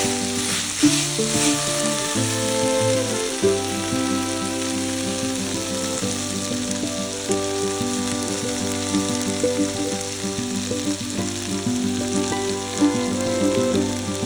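Spiced pork frying in a pot with a steady sizzle, under background music whose held notes change every half second or so.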